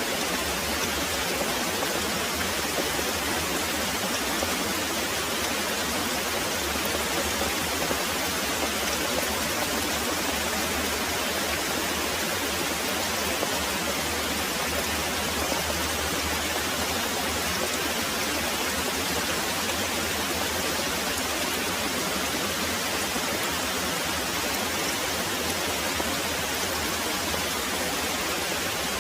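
Very heavy rain pouring steadily, an even, unbroken hiss of rainfall.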